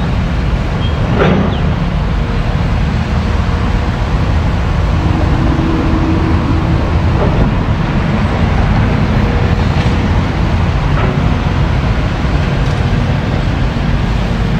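Caterpillar hydraulic excavator's diesel engine running steadily as a low rumble, with a few faint knocks as the bucket works the rock and dirt.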